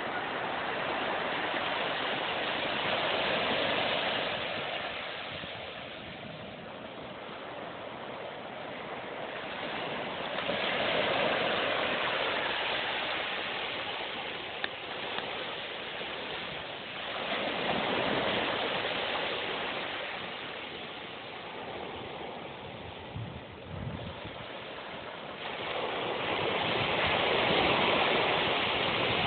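Small Caribbean Sea waves breaking and washing up a sandy beach, the surf swelling and fading about every eight seconds.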